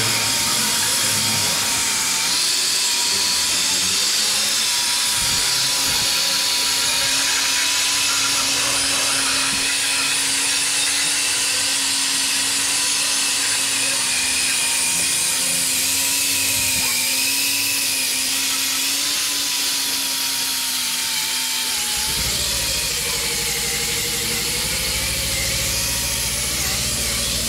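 Hand-held angle grinder running steadily against a steel vehicle chassis frame, grinding off rust and corrosion. About 22 seconds in its whine drops lower and turns rougher.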